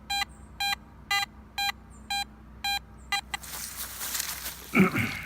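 Garrett AT Max metal detector giving a repeated mid-tone target beep, about two short beeps a second, as the coil is swept back and forth over a buried target that later turns out to be a pull tab about 6 inches down. The beeps stop after about three seconds, giving way to rustling and a brief louder sound near the end.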